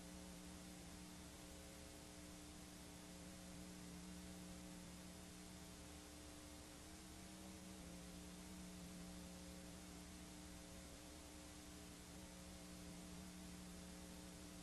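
Near silence: a faint, steady hum with hiss from a videotape playing back an unrecorded stretch.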